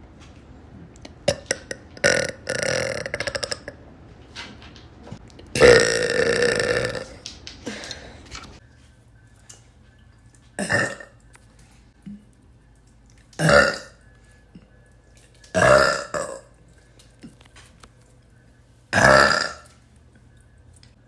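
A woman burping over and over, about half a dozen burps: the longest and loudest about six seconds in, then four shorter ones every two to three seconds.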